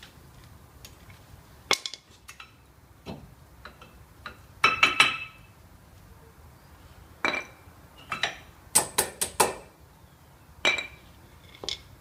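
Sharp metal clinks and taps with a short ring as the old front brake pads of a Nissan Almera are worked out of the caliper carrier, the steel pad backing plates knocking against the bracket and each other. The clinks come in scattered clusters, with a quick run of four near the end.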